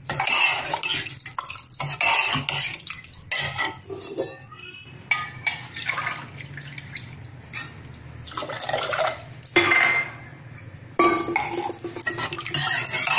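Steel ladle stirring sambar in a pressure-cooker pot, scraping and clinking against the metal sides, while water is poured in from a steel glass.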